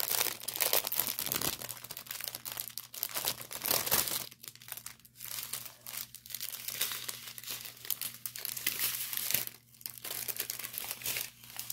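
Small plastic bags of diamond painting drills crinkling as they are handled, an irregular rustle that is loudest in the first few seconds and then fainter.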